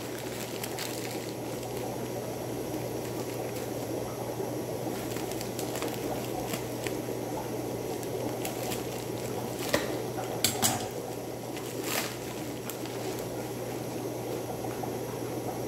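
Steady bubbling water from a rack of running aquarium tanks, over a low steady hum. About ten seconds in come a few sharp snips and crinkles as scissors cut open a plastic mailer bag.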